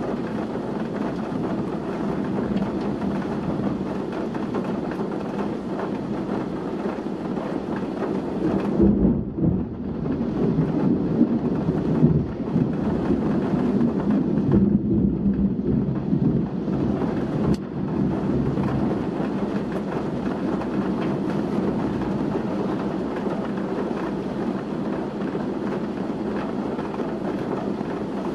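Heavy rain pouring in a windy storm: a dense, steady hiss over a low rumble. It swells louder in gusts through the middle.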